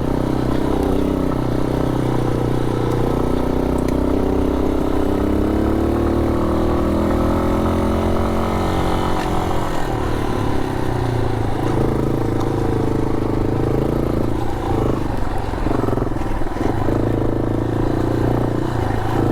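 A 250 cc single-cylinder trail motorcycle running under way, its engine note drifting up and down with the throttle, over steady road and wind noise.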